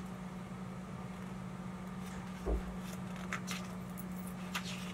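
A picture book being handled and a page turned: a soft thump about halfway through and a few faint ticks, over a steady low hum.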